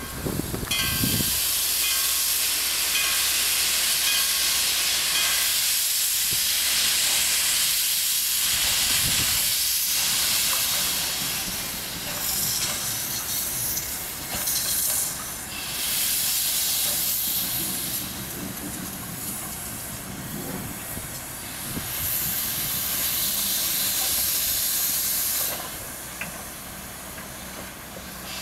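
DSB class F steam locomotive F 657 hissing loudly as it shunts, steam blowing out low at the front as from open cylinder drain cocks. The hiss comes in long spells that ease off for a few seconds at a time and drops away near the end.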